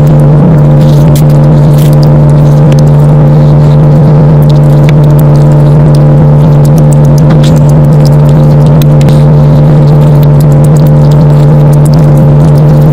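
Loud, steady low-pitched hum, unchanging in pitch, with light clicks and crackles over it.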